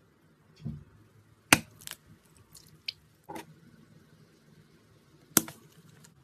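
A few separate sharp clicks and taps from small objects being handled, with softer squishy sounds between them. The two sharpest clicks come about a second and a half in and near the end.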